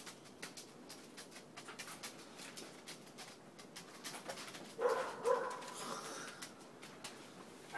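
Newspaper crinkling and rustling as it is handled. About five seconds in, a dog gives two short pitched calls, one right after the other.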